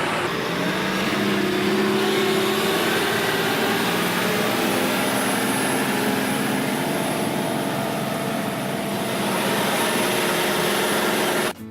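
Motor grader's diesel engine running close by under load, a loud steady rush with its engine note drifting slightly, as the hydraulics move the blade and lean the front wheels. It cuts off suddenly near the end.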